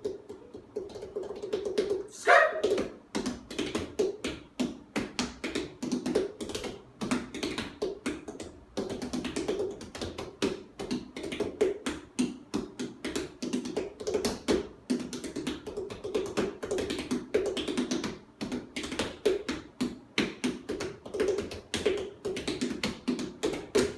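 Pumpkins struck by hand like bass drums, five players playing a fast, rhythmic marching drumline cadence in dull, hollow thuds. A brief falling sliding tone sounds about two seconds in.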